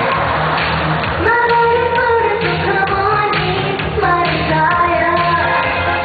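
Upbeat pop song with a female singer over a steady dance beat, played back as the music for a dance routine.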